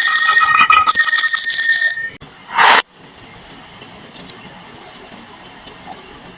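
Marbles rolling and clattering down a wooden marble run, a dense ringing rattle that stops abruptly about two seconds in, followed by one short clatter and then only faint ticks.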